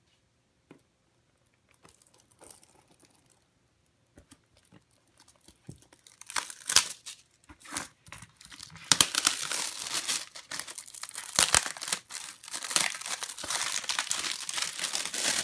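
Clear plastic shrink-wrap being scratched at with a fingernail, then torn and peeled off a cardboard box, crinkling. Faint scratches at first; the loud crackling tearing starts about six seconds in and carries on.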